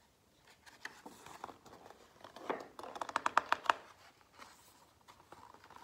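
Paper rustling and crinkling as a page of a hardcover picture book is turned and handled, with a quick run of sharp crackles about three seconds in.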